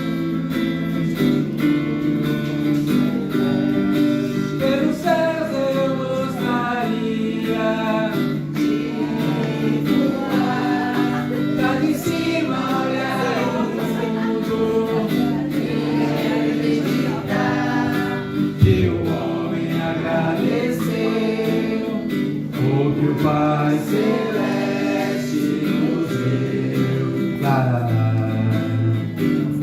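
Live acoustic guitar strummed and plucked while a voice sings a gospel song, with one brief knock about two-thirds of the way through.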